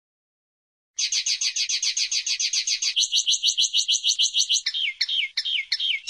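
Common linnet singing: about a second in, a fast trill of rapidly repeated high notes, switching to a new trilled phrase, then a few separate down-slurred notes near the end.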